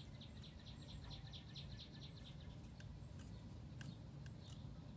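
Faint bird trill: a rapid string of high chirps, about eight a second, running for about two and a half seconds and then stopping, followed by a few light clicks.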